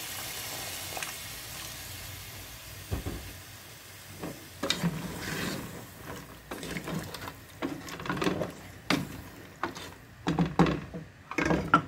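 Water poured into fried mutton and chicken in a pressure cooker, hissing and sizzling steadily. About four seconds in, a wooden spoon starts stirring, knocking and scraping against the pot with sloshing strokes.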